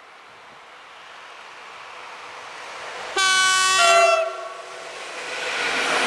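ET22 electric locomotive sounding its horn once for about a second, just past the middle: the Rp1 'attention' signal given on approach. Before the horn the train's noise grows as it nears; after it the container wagons roll past with rising wheel and rail noise.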